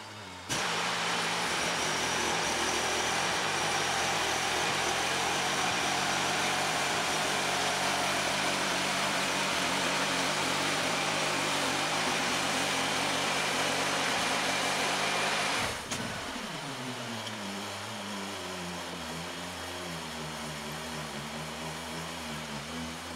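Engine-driven bandsaw mill running at full throttle, its blade cutting through a log with a loud, steady noise. About 15 seconds in, the cutting noise stops suddenly and the engine winds down to a steady idle.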